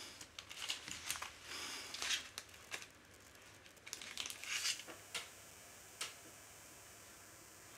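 Clear plastic bag crinkling and rustling as a small electronics kit and its packets are handled: irregular bursts through the first two seconds and again around four to five seconds in, with a single click about six seconds in.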